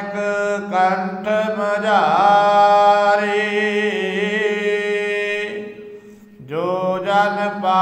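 A man's voice reciting Gurbani in a sung chant, holding long wavering notes over a steady low drone. The voice breaks off about six seconds in and then resumes.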